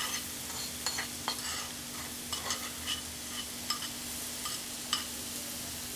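Chopped onion and butter sizzling in a pan of meatball drippings, stirred about, with scattered clicks and crackles over a steady hiss.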